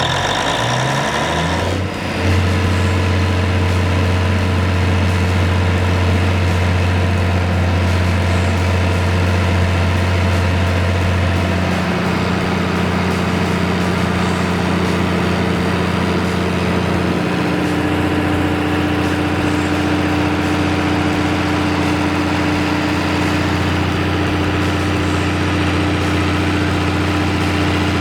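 Cummins KTA1150 inline six-cylinder turbocharged diesel engine of a 375 kW generator set, just started. It comes up to speed in the first two seconds, then runs steadily.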